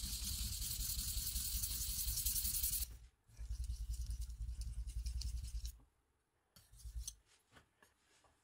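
Steel knife blade being stroked back and forth on a wet whetstone, a gritty scraping: one run of about three seconds on a 1000-grit stone, then after a short break a run of about two and a half seconds on a Shapton Kuromaku 5000-grit stone, then a few short strokes.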